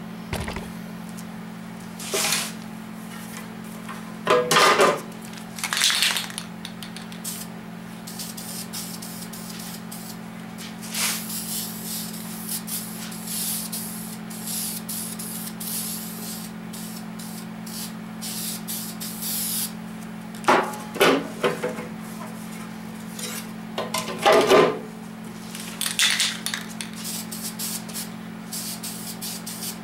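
Aerosol spray paint can hissing: one long spray of several seconds near the middle and shorter sprays around it, with brief metallic rattles in between. A steady low hum runs underneath.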